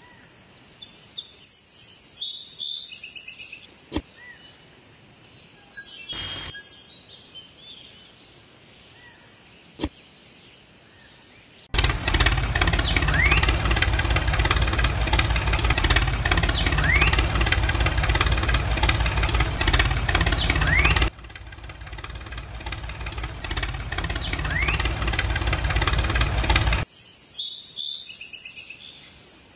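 Birds chirping, with two sharp clicks. About twelve seconds in, a loud, steady engine-like running sound starts, with birds still chirping through it. It drops to a quieter hum about nine seconds later, then gives way to chirping again.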